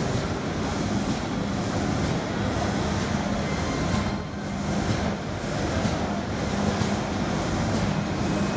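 PE/EVA plastic slider zipper bag making machine running steadily, a dense mechanical whirr with a low hum and faint regular ticks about once a second from its working cycle.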